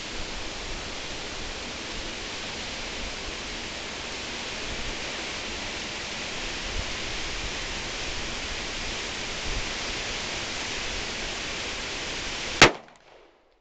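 Steady wind noise rushing over the microphone. Near the end comes a single sharp shot from a Glock 26 9mm pistol, and the sound drops away abruptly right after it.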